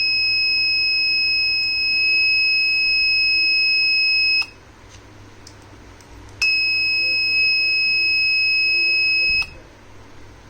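The buzzer of an Arduino gas-sensor alarm sounds a steady high-pitched tone, triggered by gas from a lighter held at the sensor. It sounds for about four seconds, stops, then sounds again for about three seconds, with a click at each start and stop.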